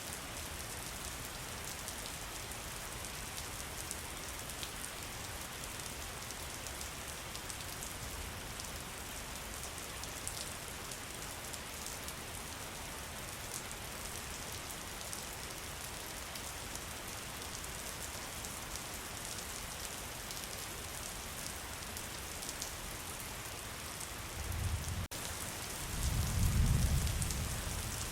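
Steady heavy rain falling on foliage, with individual drops ticking through the constant hiss. In the last few seconds a low rumble of thunder swells up and fades.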